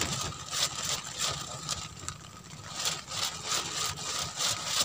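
A small engine running steadily at idle, with light sharp clicks about twice a second over it.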